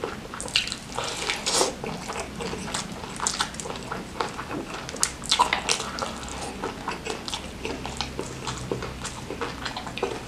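Close-miked eating: a person chewing spicy smashed fried chicken and hand-fed rice, with a steady run of irregular wet clicks and lip smacks.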